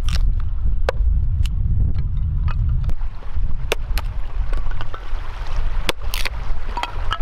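Wood fire crackling with irregular sharp pops, about a dozen of them, over a steady low rumble of wind buffeting the microphone.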